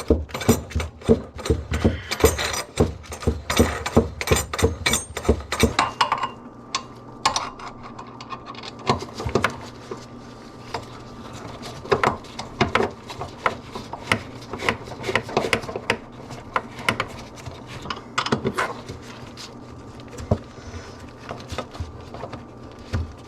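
Hand-tool work at a sink: a quick run of mechanical clicks, a few each second, for about six seconds, then scattered knocks and clicks.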